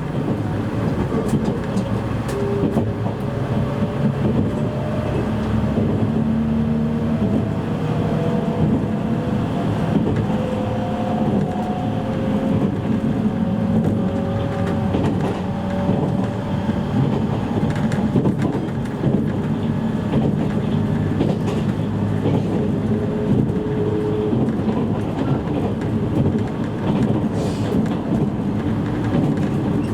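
Inside a JR East E653 series electric train's motor car running at speed: a steady rumble of wheels on the rails, with a traction-motor whine that slowly rises in pitch through the first half.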